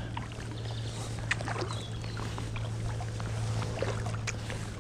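Kayak paddle dipping into canal water, with drips and small splashes off the blades, over a steady low hum.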